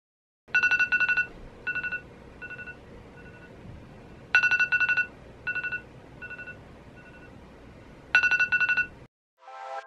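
iPhone alarm ringing: a loud group of rapid high beeps about every four seconds, each followed by fainter, repeating beeps, three times over. It stops shortly before the end.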